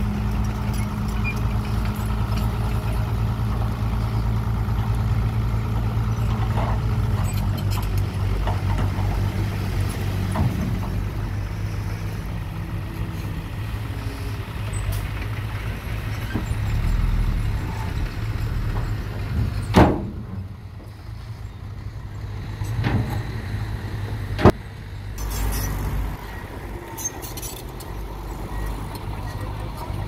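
Diesel dump truck engine running steadily as the tipper bed is raised and a load of rock and soil slides out. Past the middle, two sharp knocks about five seconds apart, then a quieter stretch before the engine sound returns.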